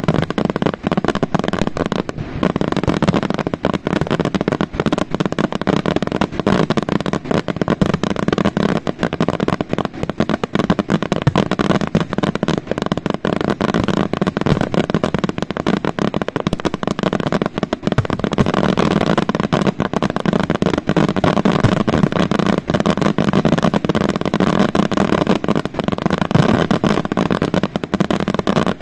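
Aerial fireworks display: a dense, unbroken barrage of shell bursts and crackling, the bangs overlapping one another, growing heavier about two-thirds of the way through.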